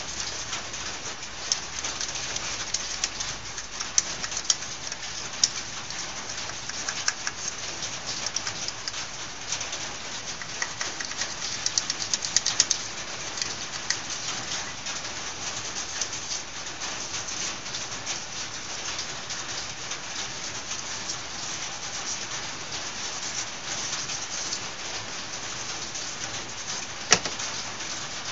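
Small clicks and taps of metal carburetor parts being handled and worked with a hand tool, over a steady hiss. There is a brief flurry of clicks about halfway through and one sharper click near the end.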